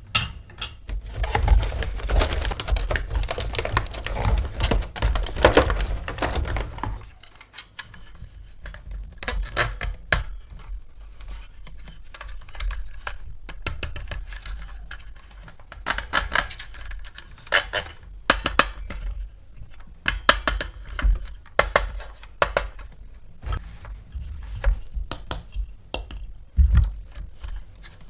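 Hard plastic toy parts clicking and clattering as they are handled and unpacked, in irregular sharp taps. The first seven seconds are denser, with rustling mixed in with the clatter.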